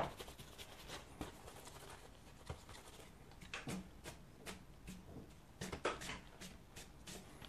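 Faint brush strokes on watercolour paper: a wide flat brush dabbing and sweeping paint to blend it, heard as scattered soft taps and brief scratchy strokes.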